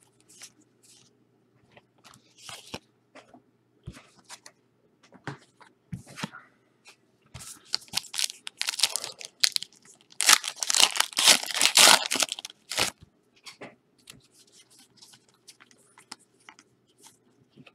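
Trading-card pack wrappers being torn open and the cards inside handled: scattered crackles and small clicks, with two long stretches of loud crinkling and tearing a little past the middle.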